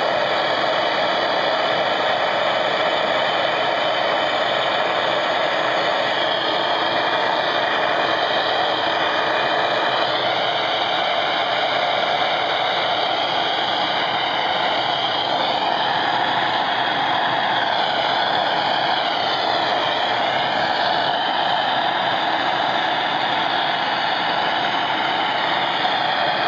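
Petrol blowtorch burning steadily, an even, unbroken rushing hiss from its flame.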